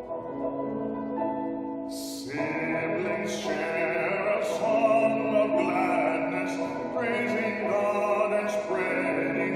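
Slow sacred music with long held notes, growing fuller and louder about two seconds in.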